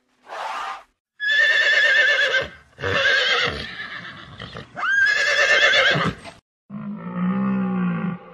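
A horse whinnying three times, each whinny a loud, high call with a quavering pitch. Near the end a much lower-pitched animal call from a larger animal begins.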